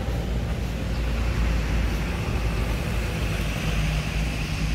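Low, steady rumble of a slowly moving car, with an engine hum that grows a little stronger near the end.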